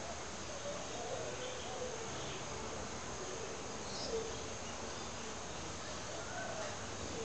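Alaskan Malamutes play-fighting: short, wavering whines and grumbling moans come on and off irregularly, with a steady high hiss behind them.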